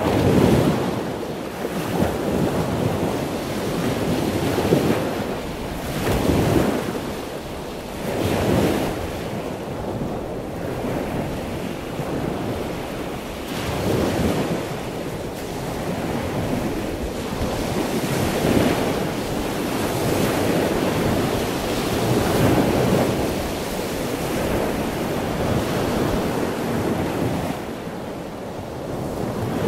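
Wind buffeting the microphone over a choppy sea, with waves splashing; the noise swells and eases in irregular gusts.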